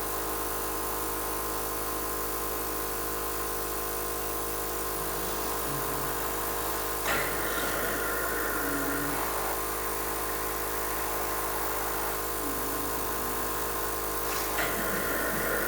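Cough assist (mechanical insufflation-exsufflation) machine running with a steady blower hum as it cycles through breaths. Twice, about seven seconds apart, there is a sudden click and then a rush of air lasting about two seconds.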